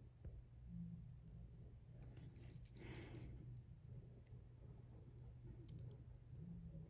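Near silence with a few faint, scattered clicks and light scraping as a tiny flathead screwdriver works at a small screw in a DJI Mavic Air 2's plastic landing-gear leg. A low steady hum runs underneath.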